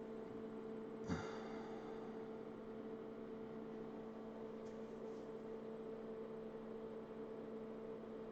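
Steady electrical hum with two held tones over faint hiss. About a second in comes a single sharp clink with a brief high metallic ring.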